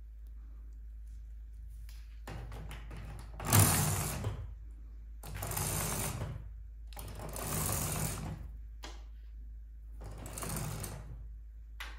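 Blackout roller blind worked by its bead chain: the chain and clutch mechanism rattle in four pulls of about a second each, over a steady low hum.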